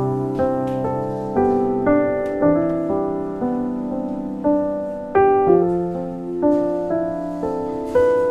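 Slow solo piano music, a note or chord struck about every half second and left to ring.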